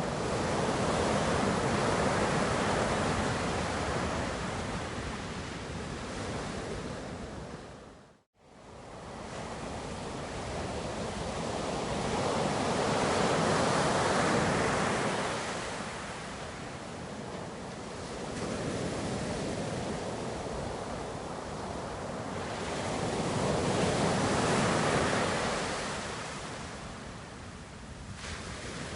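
Ocean surf: waves breaking and washing in, swelling and fading in slow surges about ten seconds apart. The sound cuts out for an instant about eight seconds in.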